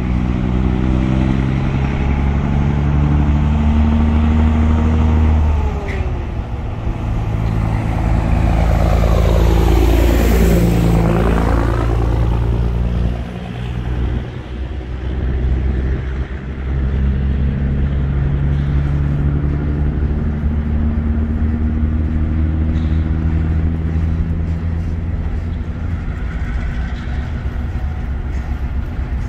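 A truck on the road comes up and passes close by, engine and tyres loudest about ten seconds in, then fades. A diesel locomotive engine runs under it: the EMD GP9 switcher working a cut of hopper cars, its steady engine note clearest in the second half.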